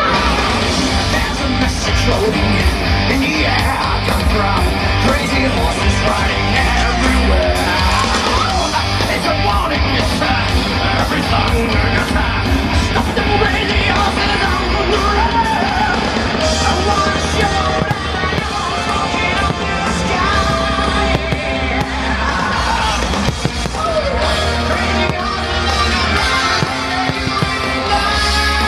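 Loud rock music with a heavy beat and shouted vocals, played over outdoor show speakers.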